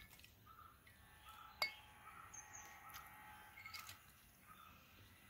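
A small glass cup clinks once against the rim of a glass jug about one and a half seconds in, ringing briefly, with a fainter tap near the four-second mark. Under it, faint short chirps repeat about once a second.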